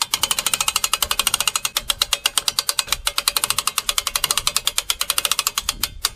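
A hand-crank gear winch being cranked to hoist a heavy kayak. Its ratchet clicks rapidly and evenly, about a dozen clicks a second, and stops about six seconds in.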